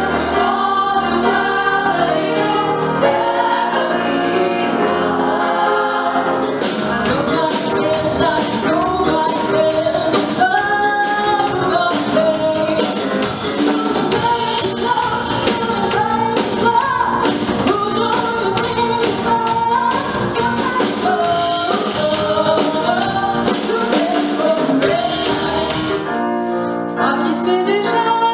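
A group of female voices singing in harmony, joined about six seconds in by a drum kit keeping a steady beat. Near the end the drums drop out and the music changes.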